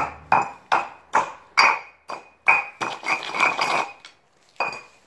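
A brick repeatedly struck down onto burnt Hot Wheels toy cars lying on brick pavers. Sharp knocks come about two or three a second, each with a short ring, and run together into a rapid clatter from about three to four seconds in. One last knock comes near the end.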